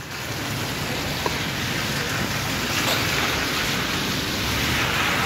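Steady rain falling on wet paving, an even hiss that grows louder over the first second and then holds.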